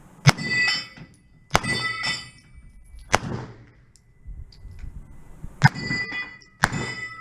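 Five gunshots at uneven intervals, most of them followed by the clang and ring of steel plates on a Texas Star spinning target being hit.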